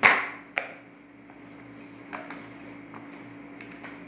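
Hands handling a plastic fidget toy: one sharp click at the start, another about half a second later, then a few faint scattered clicks over a steady low hum.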